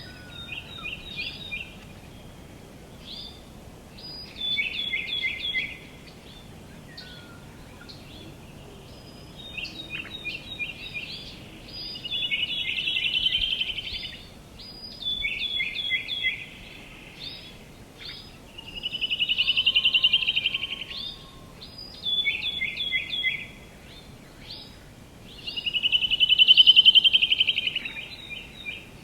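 Songbirds singing: short bursts of quick repeated chirps every second or two, and three longer trills that swell and fade, the last near the end the loudest. A faint steady outdoor noise lies underneath.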